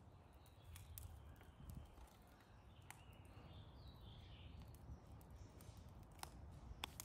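Faint wood fire burning in a clay stove: a few sharp, scattered crackles and snaps of the sticks over a low, steady rumble.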